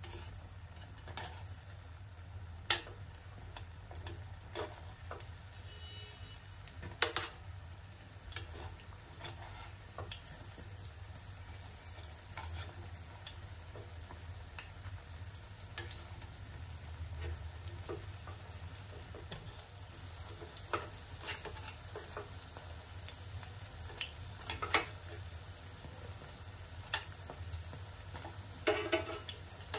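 Small rice-and-urad-dal batter balls deep-frying in oil in a steel pan, giving a faint steady sizzle. A steel spoon clicks sharply against the pan now and then as the balls are turned over, loudest about seven seconds in.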